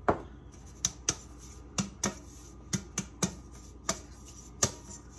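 Sharp taps of a flour shaker and a shiny metal cake pan as a greased pan is dusted with flour. About ten taps, irregular and often in quick pairs.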